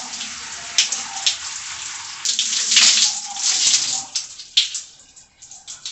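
Water running and splashing as hair is rinsed under a bathroom tap or shower. The splashing is irregular, loudest in the middle, and falls away near the end.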